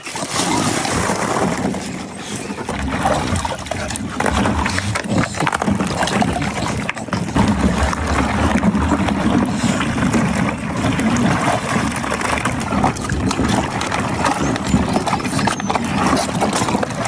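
Pool water splashing and sloshing as a dog paddles through it.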